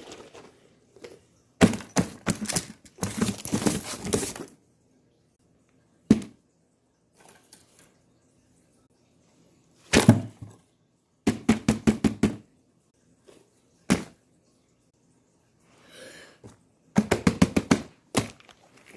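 Fidget toys being handled: bursts of rapid clicking and knocking, each a run of several quick clicks, with pauses between.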